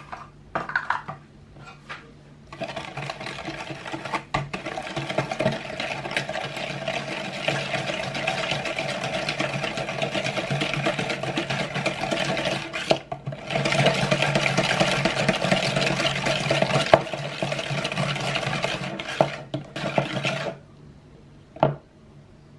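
Wire balloon whisk beating egg, sugar and oil in a plastic bowl: continuous rapid whisking with a short pause about halfway, stopping a couple of seconds before the end. A few light knocks come before the whisking starts and one after it stops.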